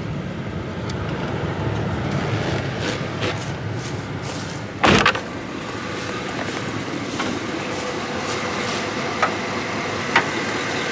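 Chevy plow truck's 6.0 V8 idling while it overheats, with one loud thump about five seconds in and a couple of light clicks near the end.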